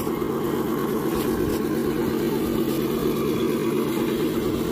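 Electric motor and geared drivetrain of RC scale crawler trucks whirring steadily as they crawl through grass.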